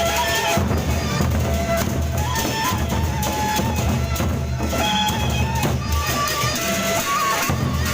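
Gendang beleq ensemble playing: the large Sasak barrel drums beating steadily under a melodic line of short held notes.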